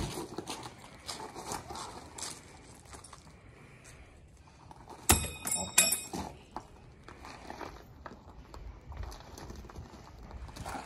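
Stainless-steel shuriken thrown into a clay target: a sharp hit right at the start, then about five seconds in a loud hit followed by a short metallic ringing, and another hit just under a second later.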